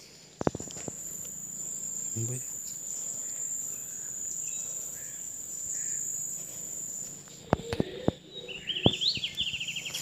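Steady high-pitched drone of insects, with a few footsteps and rustles in roadside undergrowth, and a short run of quick bird chirps near the end.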